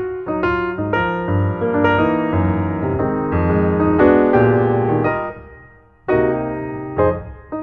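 Background piano music, a run of struck notes and chords; it dies away about six seconds in, then a new phrase begins.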